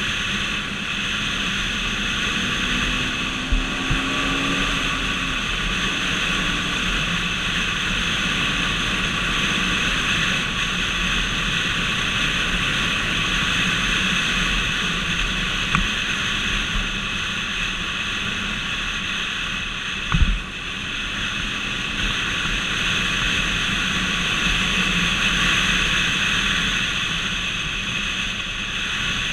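A vehicle cruising at highway speed, with steady road and wind noise. A few short knocks come through, the loudest about twenty seconds in.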